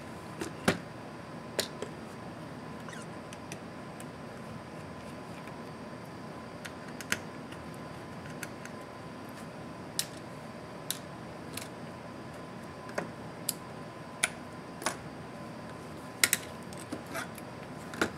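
Laptop teardown on a work table: scattered light clicks and taps from a small precision screwdriver on motherboard screws and from the board and copper heatsink being handled and set down. Under the clicks runs a steady background hiss with a faint steady whine.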